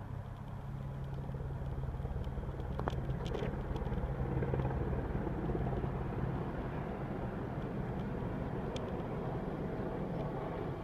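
Westland Sea King rescue helicopter approaching low over rooftops. Its rotor and turbine noise builds over the first few seconds into a steady low drone.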